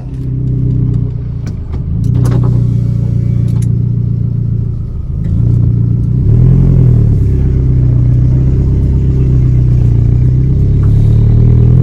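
A car engine running with a steady low rumble, its pitch swelling briefly about six seconds in.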